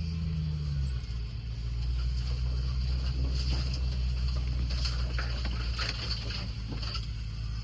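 Land Rover Discovery engine running at low revs while crawling along an off-road trail; its note drops about a second in and then holds a steady low drone, with scattered light clicks and rattles over it.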